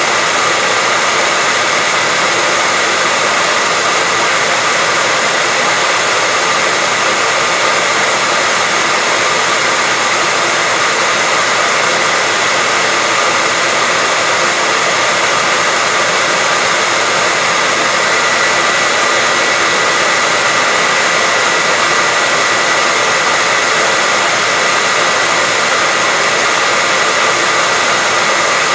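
Hair dryer running continuously, a steady airy blowing with a thin constant whine on top and no change in speed.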